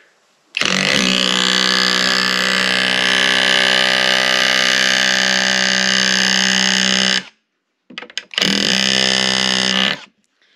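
Skil 12-volt cordless auto hammer driving a framing nail into wood: a very loud, steady rapid-fire hammering buzz for about six and a half seconds, a short pause with a few light taps, then a second burst of about a second and a half that sinks the nail.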